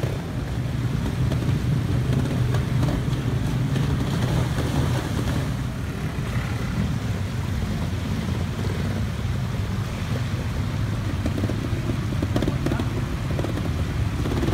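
Trials motorcycle engines running at low revs, a steady low engine note as the bikes are ridden slowly over rocks.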